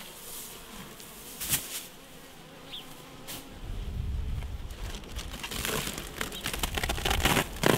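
Honeybees buzzing around an opened hive. There are two sharp knocks in the first half, and in the second half comes the dense rustle and crinkle of the cloth cover being pulled back off the frames.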